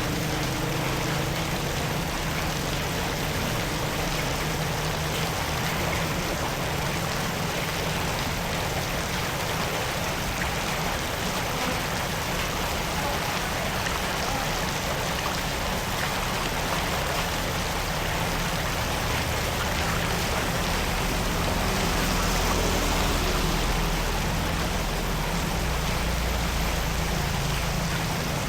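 Floodwater rushing steadily, with a faint low hum underneath.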